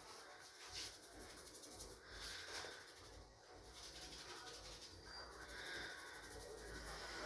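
Faint scratching and rubbing of hair on an oiled scalp during a dandruff-removal head massage, a soft rapid rasp.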